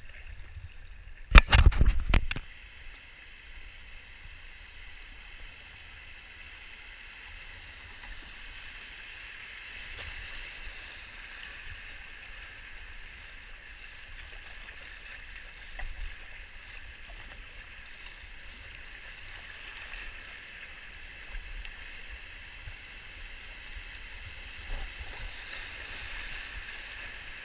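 Creek water rushing and lapping steadily around a kayak being paddled down a shallow stretch of creek. A short, loud burst of knocks and splashes comes about a second and a half in, the loudest sound here.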